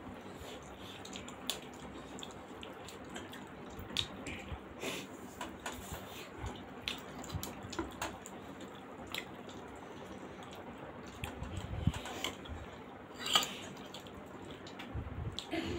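Wet chewing and lip-smacking of people eating steamed momos by hand, with scattered sharp clicks and smacks and one louder wet smack near the end.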